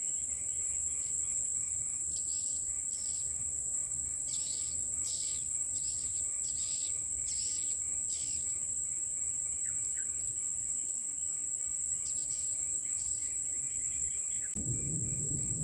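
Swiftlets twittering in short, irregular chirps over a steady, shrill insect drone. A low rumble comes in near the end.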